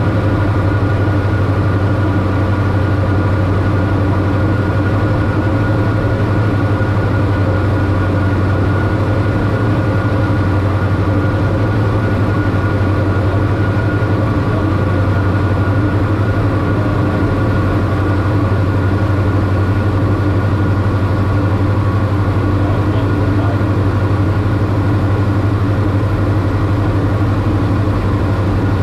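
Diamond DA42-VI's twin turbocharged Austro AE300 diesel engines and propellers droning steadily in cruise, heard inside the cockpit: a deep, even hum with a few steady higher tones above it and no change in power.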